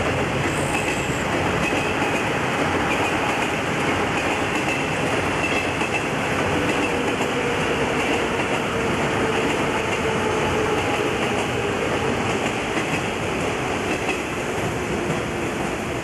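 Yellow electric commuter train running past on the tracks: a steady, loud rumble of wheels on rail with faint held tones over it.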